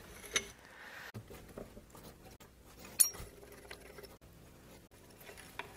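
Faint metal clicks and clinks of a wrench and 3/8 Whitworth bolts being worked loose and drawn out of a corroded aircraft engine mount, with one sharper click about three seconds in.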